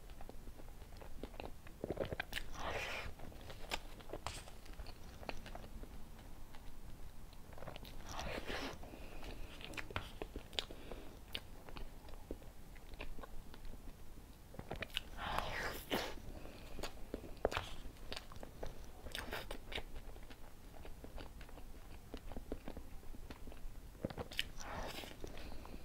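Close-miked eating of soft cream cake from a spoon: wet chewing and lip smacking, with a louder cluster of sticky smacks and clicks every few seconds as each spoonful goes in.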